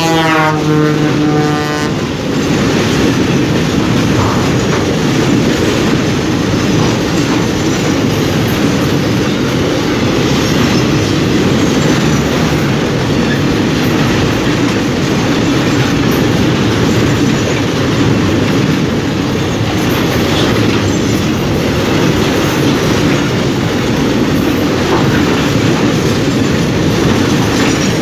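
Freight train passing close by: the locomotive's horn sounds as it goes past, its pitch dropping, and stops about two seconds in. After that comes the steady rolling noise of a long string of container flatcars, with wheels clicking over the rail joints.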